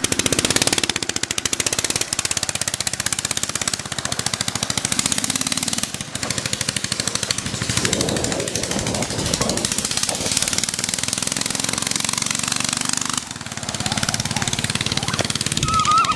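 A 10 hp Tecumseh single-cylinder vertical-shaft lawnmower engine running loudly on a go-kart as it drives, its fast firing pulses steady, with the engine note shifting about halfway through and dipping briefly later on.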